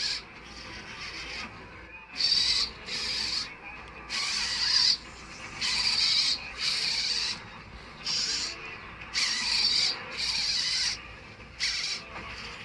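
RC hobby servos in a 3D-printed robot arm whining in short bursts as the joints move. There are about ten separate moves, each lasting half a second to a second, with a high, buzzy gear-motor sound.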